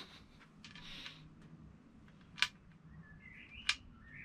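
Quiet handling of glued metal tubes: a few sharp clicks and taps, a brief scrape about a second in, and faint high chirping squeaks near the end.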